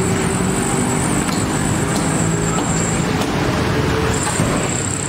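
Steady din of road traffic around a busy roadside kitchen, with a few faint clicks.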